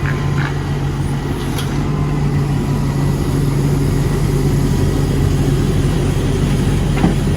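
Volvo excavator's diesel engine running steadily at an even speed, with a few light clicks near the start and a single sharp tick near the end.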